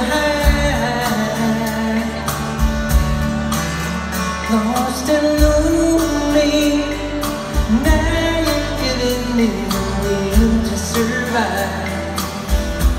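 Live band playing a soft ballad with acoustic and electric guitars, drums and sung vocal harmonies, heard from the audience in a large hall.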